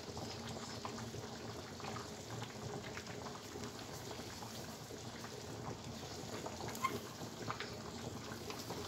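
Sugar syrup simmering in a wide aluminium tray around a syrup-soaked bread dessert on a gas burner: a soft, steady bubbling with many small scattered pops.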